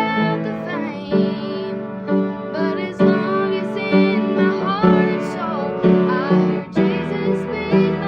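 A slow song with piano accompaniment and a female voice singing wavering, gliding notes without clear words.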